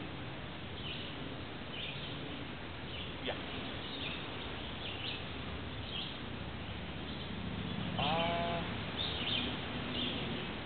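Short high bird chirps repeating about once a second over a steady background hiss, with one short wavering call about eight seconds in.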